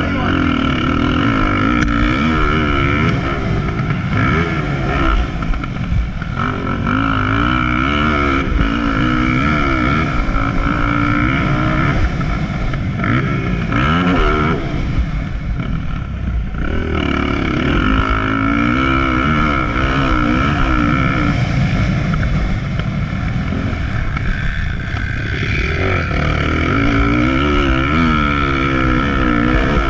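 Motocross bike engine heard close from a camera on the bike, revving up and down with the throttle as it is ridden around a dirt track. The throttle shuts off briefly about halfway through and again a few seconds before the end.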